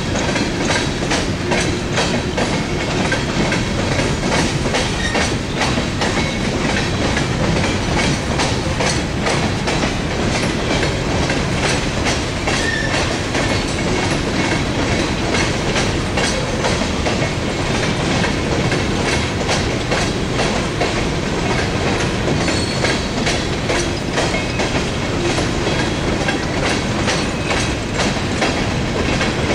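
Empty coal hopper cars of a CSX freight train rolling past on the rails: a steady rumble of steel wheels with a constant run of clicks and rattles.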